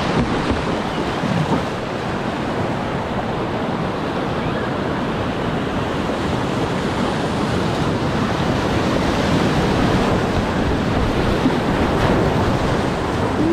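River whitewater rushing and splashing close by, a steady dense roar of moving water.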